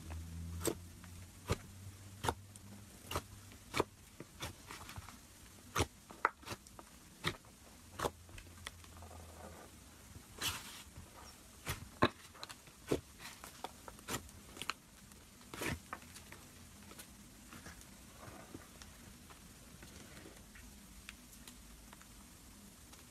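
Soft blue slime being pressed, folded and stretched by hand, giving off irregular sharp pops and clicks, about one a second at times, thinning out near the end.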